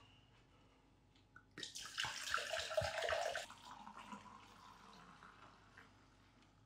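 Red wine poured from a glass bottle into a ceramic mug. A splashing pour starts about one and a half seconds in, is loudest for about two seconds, then tapers off to a thin trickle.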